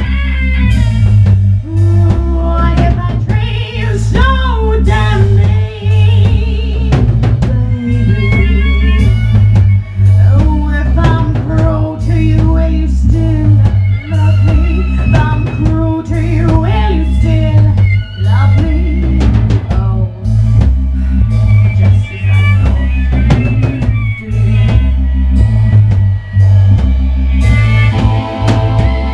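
A rock band playing loudly: a drum kit keeps a steady beat over a pulsing bass line, with a wavering melody line above.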